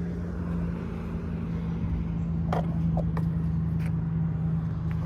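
Ford F750 service truck's 5.9 Cummins diesel running steadily at idle, an even hum, with a few light clicks about halfway through.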